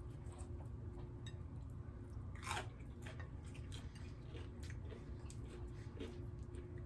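Close-up chewing: a run of small crisp mouth clicks and crunches, with one louder sound about two and a half seconds in.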